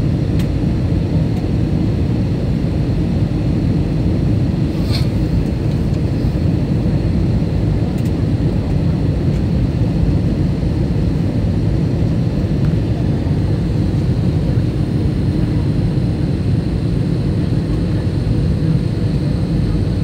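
Steady engine and airflow noise inside the passenger cabin of an Airbus A321 on its landing approach, mostly low in pitch, with a faint high whine running over it.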